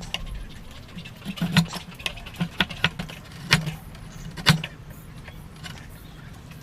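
Irregular sharp taps and knocks from hand woodworking, about seven in the first four and a half seconds, then only a low background.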